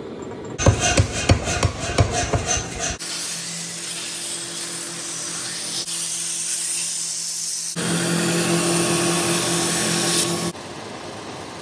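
A belt grinder running with a steady hum while a forged Japanese-style knife blade is ground against the belt with a hissing rasp. It gets louder for a few seconds near the end, then quieter. Before the grinder starts, the first few seconds hold sharp clicks and scraping strokes of the steel blade being worked by hand.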